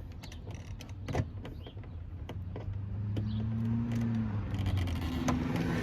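Pliers clicking and scraping on a wedged bolt inside a truck door, sharp metal clicks scattered throughout, the loudest about a second in. A low steady hum comes in about three seconds in.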